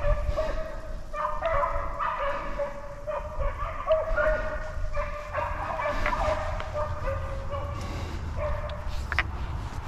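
A pack of beagles baying, several drawn-out voices overlapping in a chorus, the sound of hounds giving voice on a rabbit's scent. A low rumble runs underneath.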